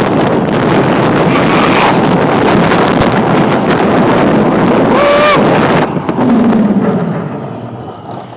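Wind rushing hard over the microphone on the Formula Rossa roller coaster as the train runs at speed, with a rider's short high yell about five seconds in. The rushing drops off sharply about six seconds in as the train slows, and a quieter rumble fades away.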